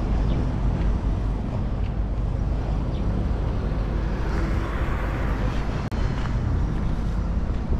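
Street traffic on a paved road under heavy wind rumble on the microphone, with a vehicle passing about halfway through.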